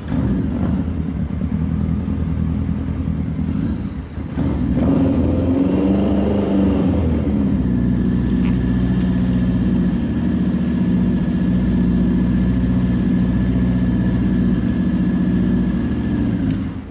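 Motorcycle engine, the air-cooled inline-four of a Yamaha XJ900-based custom, running and revving up and back down about five seconds in, then holding a steady pitch. It stops suddenly near the end.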